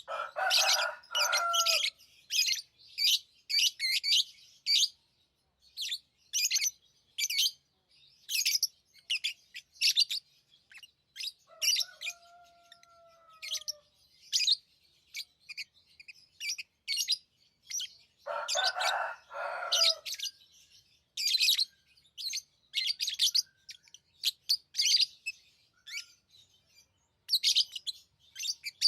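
Pet lovebirds chirping: a steady run of short, high chirps, with two louder, fuller bursts of chattering right at the start and about 18 seconds in, and a faint falling whistle around 12 seconds in.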